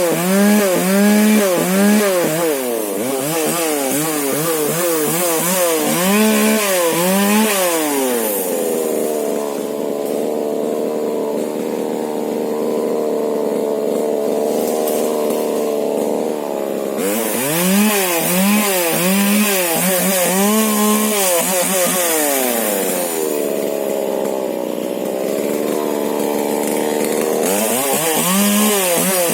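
Husqvarna 125 two-stroke chainsaw with a modified exhaust, revved up and down in quick swells about once a second, with two stretches of several seconds held at a steadier, lower speed.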